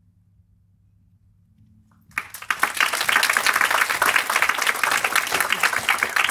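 A faint low hum, then about two seconds in an audience bursts into applause, many hands clapping densely and steadily.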